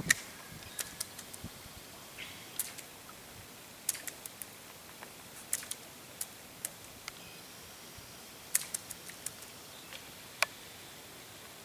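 Scattered sharp clicks and ticks, irregularly spaced and some in quick pairs or threes, over a faint steady hiss.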